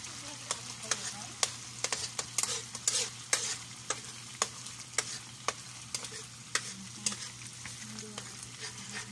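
Metal ladle stirring and scraping in a wok of sizzling food: sharp, irregular clanks of metal on metal, about two or three a second, over a steady frying hiss.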